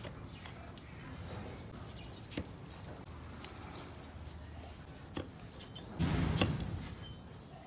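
Long-handled hoof chisel working on an overgrown donkey hoof: a few light clicks of the blade on the horn, then a louder crunching thump about six seconds in.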